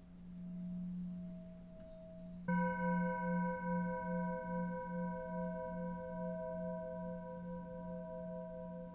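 Singing bowl ringing, then struck again about two and a half seconds in. Its layered tones pulse slowly and fade away gradually.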